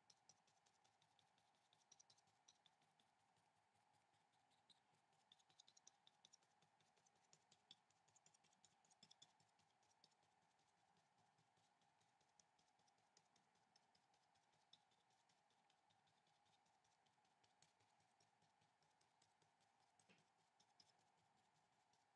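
Very faint, quick scratching and ticking of a pencil scribbling back and forth on paper, densest in the first half, over a faint steady hum.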